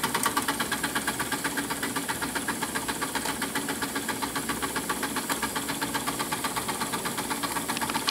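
Two Retrol model steam engines, a horizontal stationary engine driving a small dynamo and a beam engine with a flyball governor, running together under steam. They make a rapid, even chuffing and clatter of many beats a second.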